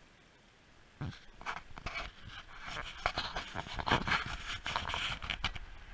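Dry leaves and brush rustling and crunching in irregular bursts, starting about a second in.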